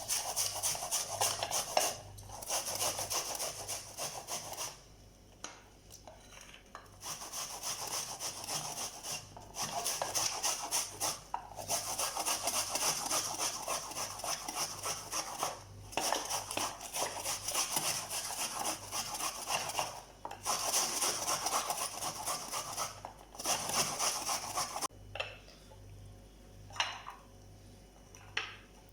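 A peeled onion being grated by hand on the fine side of a grater: rapid rasping strokes in runs of several seconds, broken by short pauses.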